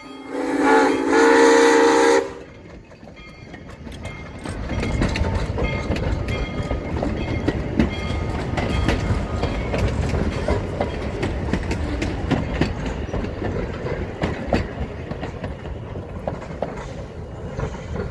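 Steam locomotive whistle gives one long blast of about two seconds that cuts off sharply. Then two-foot-gauge passenger cars roll past with a steady rumble and a dense clicking of wheels over rail joints and the street crossing.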